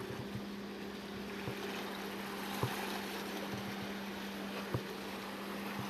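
Steady rushing wash of wind and sea with a low, even hum running through it, and two short knocks, one about two and a half seconds in and one near five seconds.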